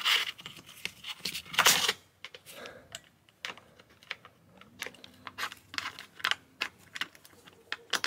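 Hands handling a Go Fast Campers quick-release rooftop tent mount and its lock on the tent track: scattered small clicks and taps of metal and plastic parts, with a short rustle about one and a half seconds in.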